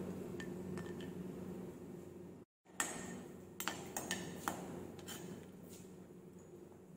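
Perforated steel ladle stirring cashews frying in ghee in a steel kadhai, clinking against the pan a handful of times over a low steady hum. The sound drops out briefly about two and a half seconds in.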